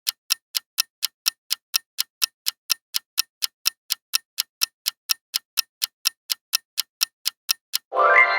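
A clock-ticking countdown sound effect: sharp, evenly spaced ticks, about three a second. Near the end a short pitched sound effect with several tones comes in over the ticking.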